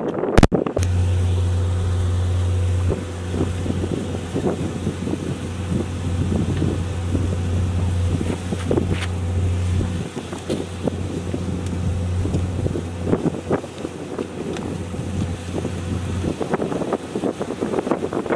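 Steady low drone of an idling engine, running evenly and then cutting off a couple of seconds before the end, with wind buffeting the microphone.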